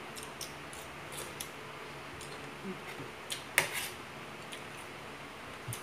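Eating at a table: crisp crunching of raw cucumber sticks and clicks of forks on plates, a string of short sharp clicks with the loudest about three and a half seconds in.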